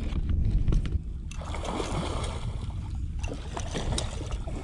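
Water sloshing beside a small boat over a steady low wind rumble on the microphone, with a stretch of rushing, splashy noise in the middle as a hooked blue catfish is brought thrashing to the surface.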